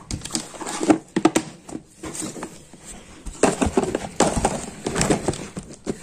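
Hands handling sewing supplies in a box: plastic-wrapped packets of lace and plastic containers rustling and knocking together. The sound comes as quick irregular clicks and knocks in two spells, one in the first second or so and another from about three and a half seconds in.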